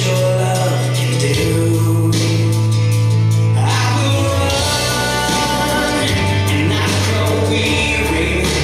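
A worship-style song playing: singing over a full band, with a bass line that moves between long held notes.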